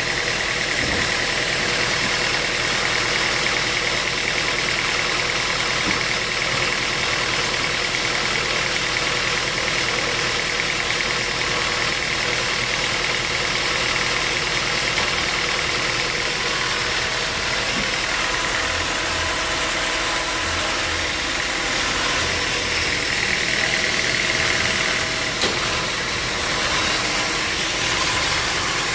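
Sawmill machinery running steadily, with an engine-like drone that holds even throughout and a few faint knocks.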